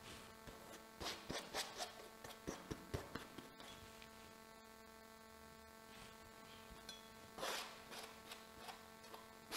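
Faint scraping of a steel palette knife spreading thick oil paint, in short strokes during the first few seconds and again near the end, over a steady faint hum.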